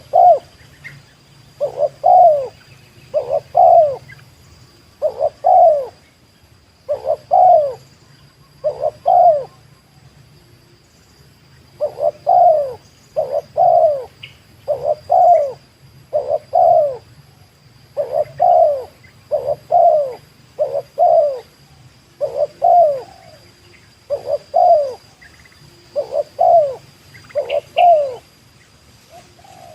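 Spotted dove (tekukur) cooing over and over, short coos mostly in pairs about once a second, with a pause of about two seconds roughly a third of the way through.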